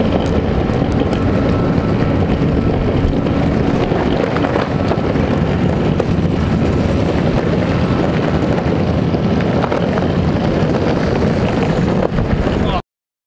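Meepo electric longboard riding on pavement: steady wheel and motor rumble with wind buffeting the microphone, cutting off suddenly near the end.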